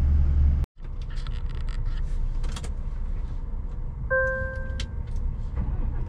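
A Scania S500 truck's V8 diesel idles with a steady low hum inside the cab, cut off abruptly less than a second in. Outdoor ambience with a low rumble and scattered clicks follows, with one short beep about four seconds in.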